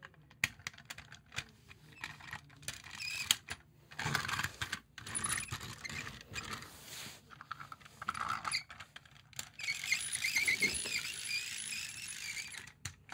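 Plastic toy tram cars of a Hiroshima 5100-class model handled and fitted together by hand: a run of light clicks and clatter, with a steadier stretch of noise from about ten seconds in.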